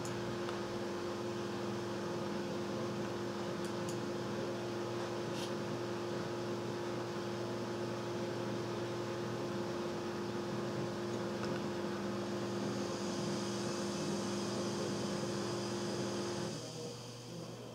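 Dell Precision 360 Pentium 4 desktop computer running: a steady fan whir with a low, even hum. It cuts off suddenly near the end.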